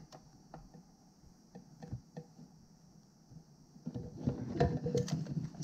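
Small plastic clicks and rattles from a wiring harness connector and a plastic fuel pump module being handled and fitted together. A denser run of handling noise with several clicks comes about four seconds in.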